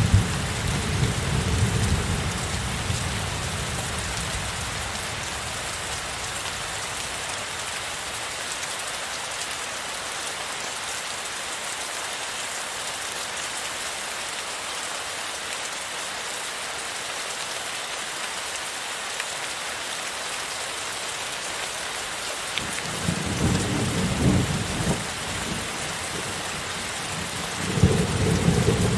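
Heavy rain falling steadily, with rolls of thunder. A low rumble dies away over the first few seconds, another rolls about 23 seconds in, and a third begins near the end.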